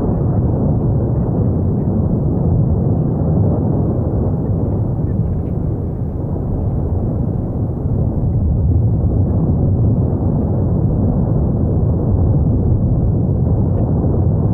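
Steady, deep rumbling of the Cumbre Vieja volcano erupting, an unbroken low noise without separate sharp blasts.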